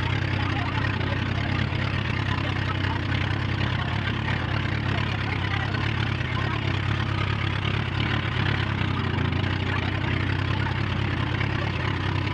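Outrigger bangka boat's engine running steadily underway, a constant low drone over an even hiss of wind and water.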